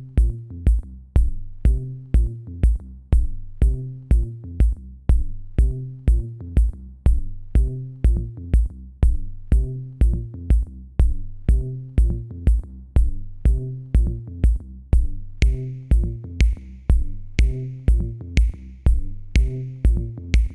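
Electronic background music with a steady drum-machine beat of about two kicks a second and quick high ticks over it. A higher synth layer comes in about three-quarters of the way through.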